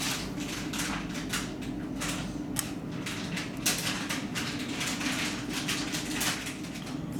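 Repeated small clicks, taps and scrapes of hand tools and parts being handled on a workbench, over a steady low hum.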